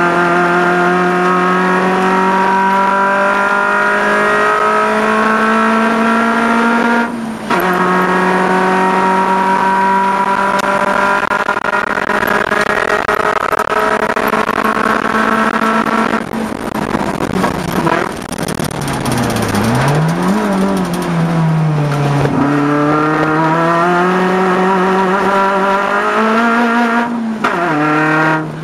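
Peugeot 106 race car's four-cylinder engine under hard acceleration, heard from inside the cabin. The pitch climbs through the gears, with a quick upshift about seven seconds in. Midway the revs fall away through downshifts with a short blip, then climb again, with more upshifts near the end.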